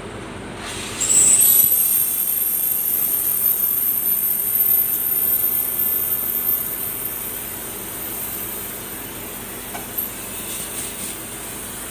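Gas cutting torch cutting through a bus's sheet-metal fender: a loud hissing jet with a high whistle that starts about a second in, glides up in pitch and then holds steady. It eases off in the second half.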